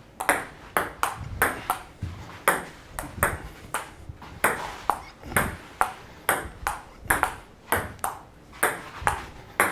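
Table tennis ball in a long rally, clicking off paddles and table about three times a second.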